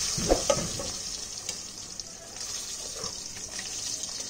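Cut potatoes frying in hot oil with a bay-leaf and whole-cumin tempering: a steady sizzle, loudest at first and settling after a couple of seconds. A few knocks against the pan in the first second.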